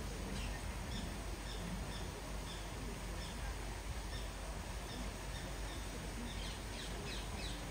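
A small bird chirping in short, high notes about twice a second, with a quicker run of falling calls near the end, over a steady background hiss.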